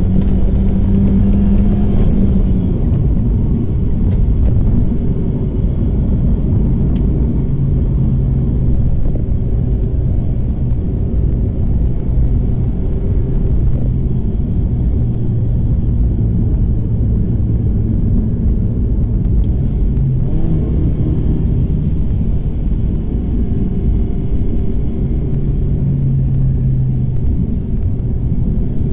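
Proton Inspira's four-cylinder engine and road noise heard from inside the cabin as the car climbs a mountain road under load: a steady low rumble whose engine note steps up and down a few times.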